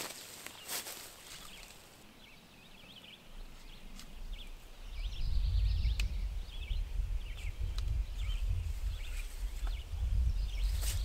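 A couple of footsteps on the forest floor, then small birds chirping in the background throughout. A low rumble sets in about five seconds in and stays while a rope is wrapped around a tree trunk.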